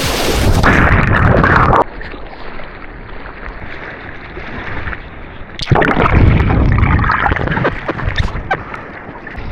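Water rushing and splashing around an action camera in the surf, with wind buffeting the microphone. A loud surge cuts off abruptly near the start, and a second sudden loud surge of churning water comes a little past halfway.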